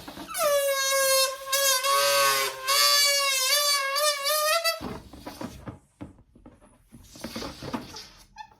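Latex balloon deflating with air squealing out through its stretched neck: one loud, wavering, high squeal lasting about four and a half seconds that cuts off suddenly, followed by softer hissing air noises.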